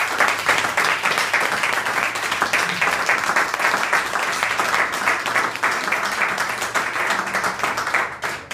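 A group of people applauding, dense steady clapping that thins out and dies away near the end.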